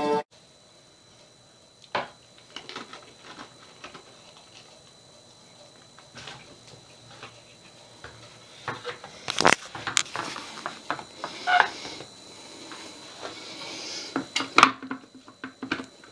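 Plastic toddler toilet-seat insert being handled and set onto a toilet: scattered clicks and knocks of plastic, with sharp knocks about nine and a half seconds in and again near the end, and some rustling in between.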